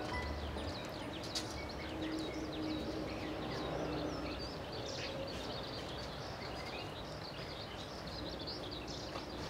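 Outdoor ambience with many small birds chirping throughout, over a steady background hiss.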